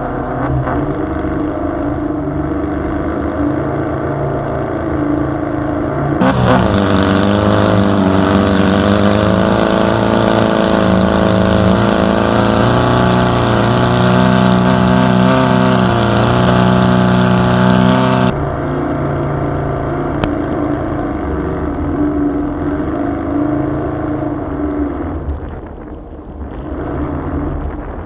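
Volkswagen engine running under load and revving a little as the vehicle tries to drive through snow. A loud hiss joins it from about six seconds in to about eighteen seconds in.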